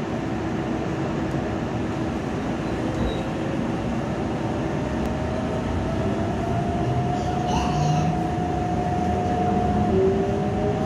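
Keikyu 600 series electric train pulling away, heard from inside the car: the traction motors' whine climbs slowly in pitch as it accelerates, over a steady rumble of the running gear. A second rising tone joins near the end.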